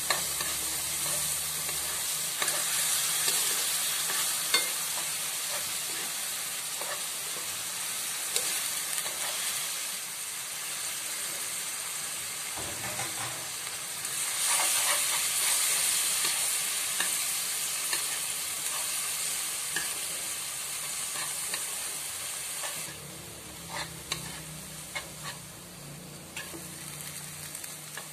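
Onions and spaghetti sizzling in a nonstick frying pan while a spoon stirs and scrapes, with light clicks of the utensil on the pan. The sizzle flares louder about halfway through as more sauce goes in, then dies down, with a few more taps near the end.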